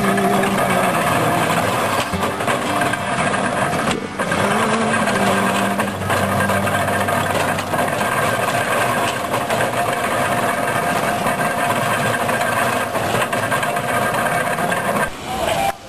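An engine running steadily: a loud, noisy mechanical din with a few held tones over it. It dips briefly about four seconds in and again near the end.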